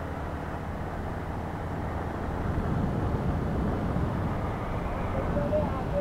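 Riding noise from a Yamaha MT-15's 155 cc single-cylinder engine under way at highway cruising speed, mixed with wind rushing over the microphone; it grows louder about two and a half seconds in.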